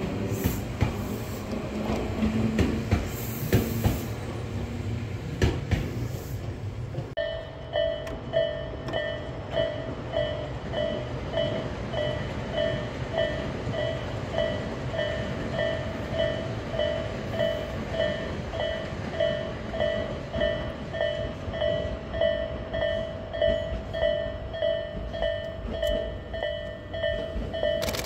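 Electric commuter train running on the line, wheels clicking over the rail joints with a low rumble. About seven seconds in, the sound cuts to a railway crossing alarm ringing with a steady, evenly repeating ding over continuing train rumble.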